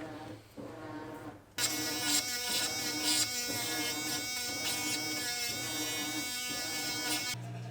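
A small electric motor tool buzzing steadily for about six seconds, starting about a second and a half in and cutting off shortly before the end, with quieter handling sounds before it starts.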